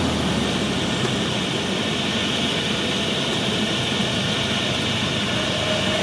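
Cabin noise of a single-engine propeller airplane on landing: the engine throttled back and a steady rush of air over the airframe. The lowest engine hum drops away right at the start as power comes off for the flare.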